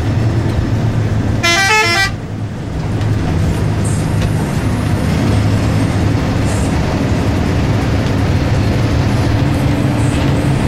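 Bus telolet horn playing a quick run of stepped notes for about half a second, a second and a half in, over the steady low rumble of a bus engine and road noise.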